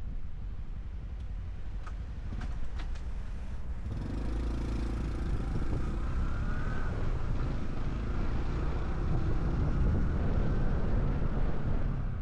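Small single-cylinder Honda Cub 125 motorcycle engine and exhaust running as the bike rides along, with wind on the microphone. About four seconds in the engine gets louder as the bike pulls harder, and stays up to the end.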